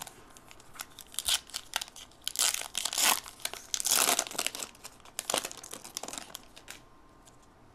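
Plastic wrapper of a Topps football card pack crinkling and tearing as it is opened, in a quick irregular run of crackles, loudest in the middle.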